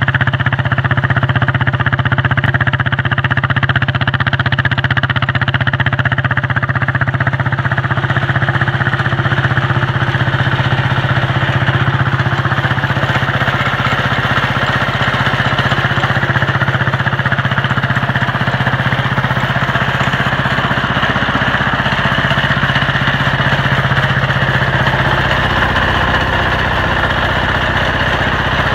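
Air-cooled diesel engine of a diesel-swapped Ford garden tractor running steadily.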